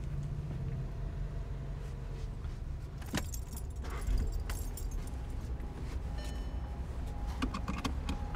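Car keys jangling with a few sharp clicks inside a car cabin, over a steady low rumble.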